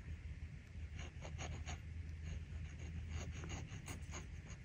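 Glass dip pen nib scratching on paper as a word is written: a string of short, soft scratches in quick succession.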